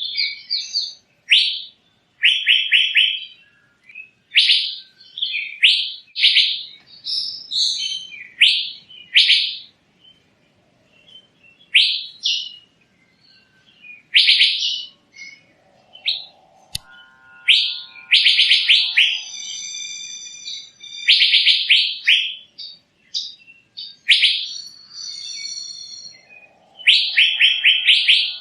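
Asian fairy-bluebird (cucak biru) singing: short, loud whistled phrases, many of them rapid trills, repeated every second or two, with a few longer, lower calls about two-thirds of the way through and near the end.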